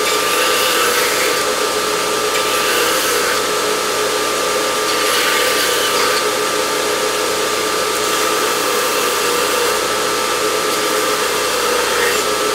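Belt grinder running with a steady hum, with several short stretches of hissing as a piece of hardened O1 tool steel is pressed to the belt, throwing sparks. The steel is being ground to bright spots before tempering.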